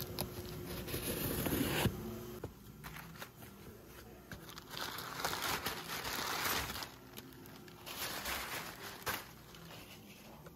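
Box cutter slitting the packing tape along a cardboard box for about the first two seconds. Then crinkling and rustling in bursts as crumpled kraft packing paper is pulled out of the box.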